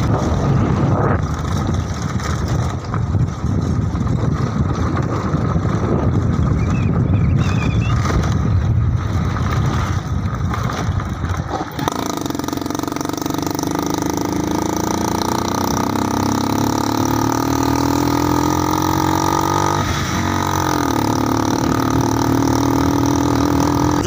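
Motorcycle engine running while riding on a rough dirt road. For the first half it is a rough, noisy rumble. About halfway it turns to a clear engine note that slowly rises in pitch, dips briefly near the end and then holds steady.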